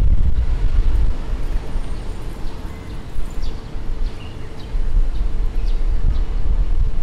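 Outdoor street ambience: a heavy, steady low rumble with a constant hum, and faint short high chirps scattered through.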